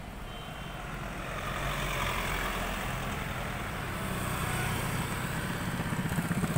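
A motor vehicle engine running steadily and growing gradually louder, with a rapid, even pulsing near the end.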